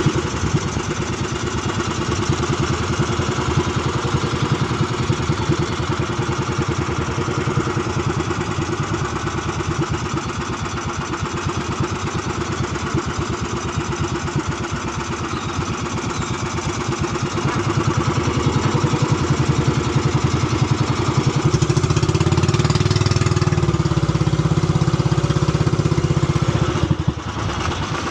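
Small fishing boat's engine running steadily as it holds off from a hooked blue marlin. It grows louder from about two-thirds through, then eases off abruptly just before the end.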